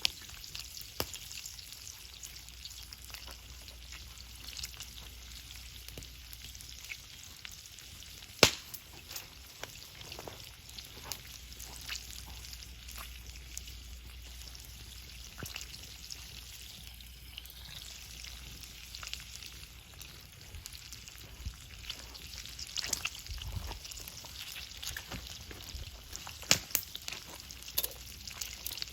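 Seafood paella sizzling in an iron paella pan over a wood fire, with a steady hiss, scattered crackles, and one sharp pop about eight seconds in.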